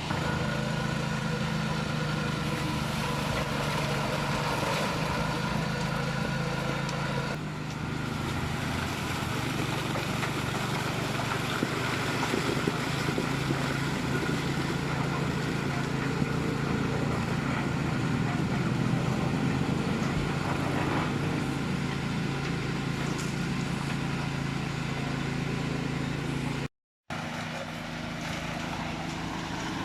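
An engine running steadily with an even, constant drone.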